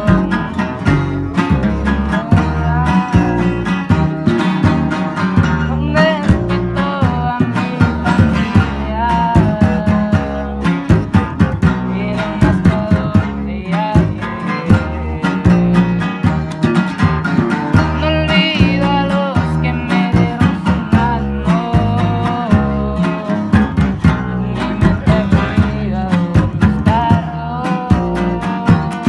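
Live sierreño-style guitar music: acoustic guitars picked and strummed over a steady, rhythmic bass line.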